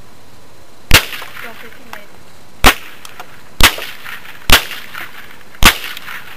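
Five shots from a Marlin semi-automatic .22 rifle, fired at uneven intervals of roughly one to two seconds, each a single sharp crack.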